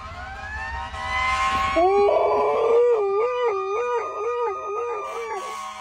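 A dog howling along with a passing emergency vehicle's siren. The siren's wail rises over the first two seconds and then slowly falls. From about two seconds in the dog joins with a loud, wavering howl that stops just before the end.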